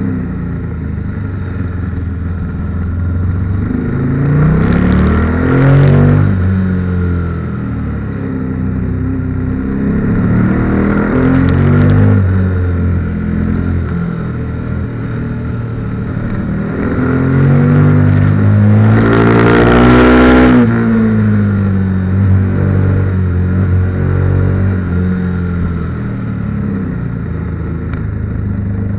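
KTM 1290 Super Duke R's V-twin engine pulling hard out of bends and easing off between them, three times, its pitch rising with each pull. The longest and loudest pull comes about two-thirds of the way through, with wind noise rushing over the bike.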